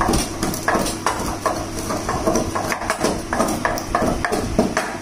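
Pestle knocking in a mortar, crushing black pepper, cardamom and tulsi leaves: a run of irregular knocks at about two a second.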